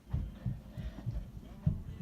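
Dull, low thuds in quick, uneven succession, the loudest near the end: a person doing burpees, hands and feet landing on the floor.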